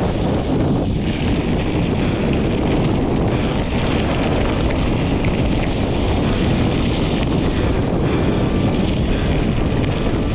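Steady, loud rushing of wind over a GoPro action camera's microphone during a mountain-bike ride, mixed with falling rain.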